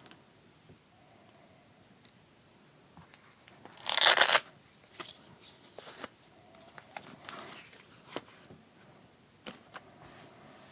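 Packaging of a keycap set being torn open. There is one loud tear about four seconds in, with lighter rustling and handling clicks after it.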